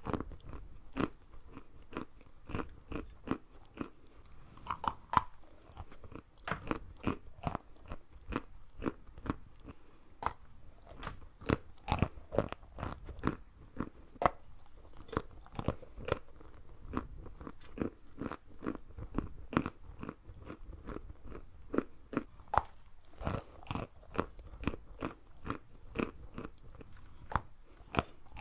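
Close-miked chewing of large chunks of white sugar: a steady run of sharp, dull crunches, several a second, as the lumps are bitten and ground between the teeth.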